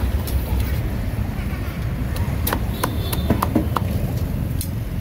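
Heavy steel cleaver chopping a roasted bird on a thick wooden chopping block: a run of sharp chops, mostly in the second half, roughly three a second, over a steady low rumble of background noise.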